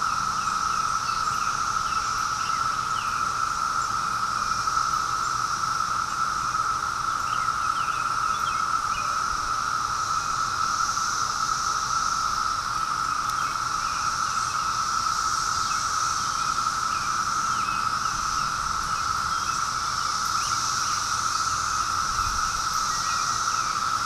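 Chorus of many cicadas singing together: one steady, unbroken drone, with a higher hiss that swells and fades every few seconds.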